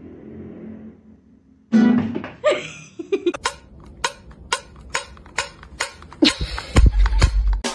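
A guitar is played briefly, then comes a quick, even run of sharp taps on a small metal food can, about three or four a second. A louder, bass-heavy stretch follows near the end.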